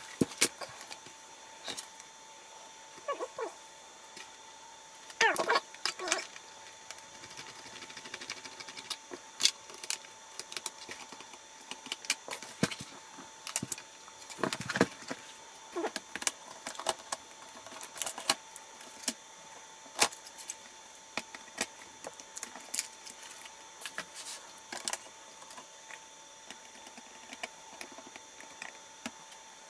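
Handling noise from taking a laptop apart: irregular clicks, taps and knocks of its plastic case, small parts and tools, with a few louder clatters about five seconds in and midway as the machine is turned over.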